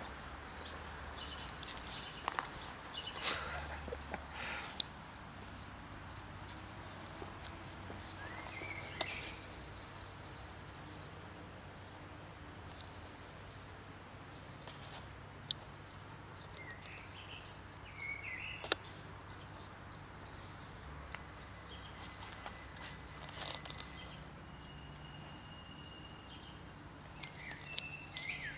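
Outdoor background with a steady low hum, scattered small clicks and rustles, and brief bird chirps now and then, about 8 seconds in, around 17 seconds and near the end.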